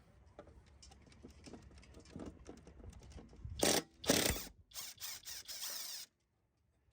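Tools working on a lawnmower's blade mounting: light clicks and knocks, then several loud, harsh bursts a few tenths of a second each, cutting off abruptly.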